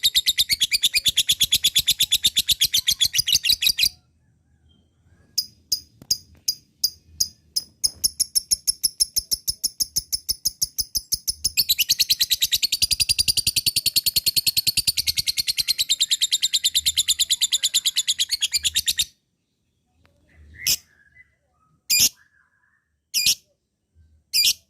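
Lovebird chattering (ngekek): a long, very fast trill of high repeated notes that breaks off about four seconds in, a handful of single chirps, then a second long trill lasting about ten seconds, and a few separate calls near the end.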